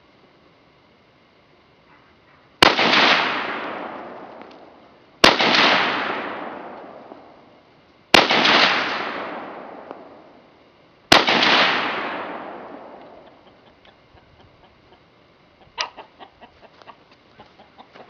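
Four semi-automatic shots from an SKS rifle in 7.62x39mm, about three seconds apart, each followed by a long echo dying away. No shot rings the steel target: all four miss. Near the end comes a sharp click and a run of short, quick sounds.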